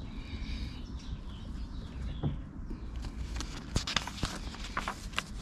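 Birds chirping, with a steady low rumble underneath. Short sharp clicks and taps come in quick succession in the second half.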